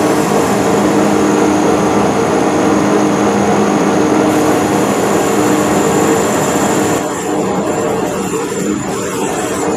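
Metal lathe running steadily with a hum and a high whine while a cutoff tool plunges into the spinning aluminum workpiece, cutting the bottom of a V groove. About seven seconds in the high whine drops away and the sound gets a little quieter.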